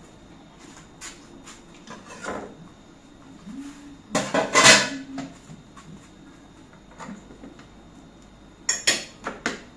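Kitchen clatter of dishes and utensils being handled on a counter, loudest about four seconds in. Near the end come a few quick sharp knocks, like a knife on a cutting board.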